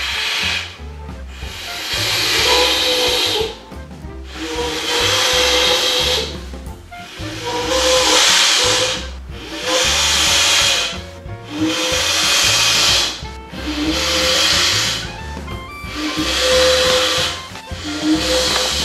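Breath blown hard by mouth into the one-way valve of a Datamo air mat's pillow, about eight long hissing puffs one every two seconds or so, as the pillow fills. He blows strongly because the valve's anti-backflow flap lets no air in with weak blowing.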